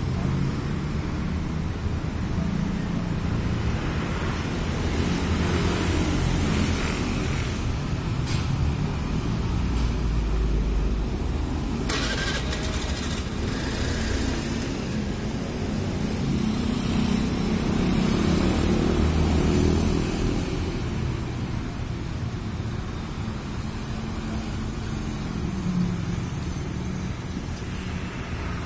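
Road traffic: engines of passing motor vehicles, a low rumble that swells and fades several times.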